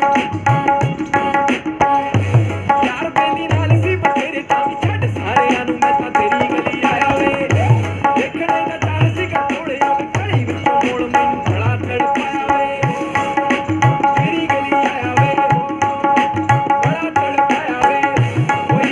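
Tabla played in a steady, busy rhythm: crisp strokes on the small right-hand dayan and deep bass strokes on the larger left-hand bayan, some of them bending in pitch. It is played over the recorded song's instrumental music.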